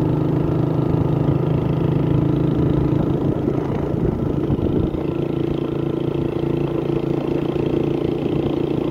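Motorcycle engine running at a steady pitch.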